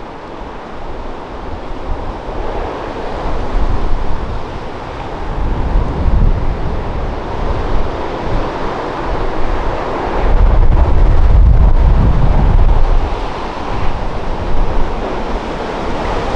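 Rough, stormy sea: waves surging and breaking, with strong wind buffeting the microphone. A deeper rumble builds about two-thirds of the way through.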